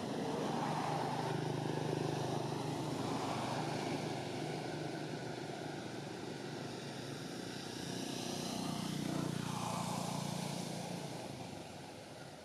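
Drone of a passing motor engine, swelling about a second or two in and again near nine seconds, with its pitch bending as it goes by, then fading near the end.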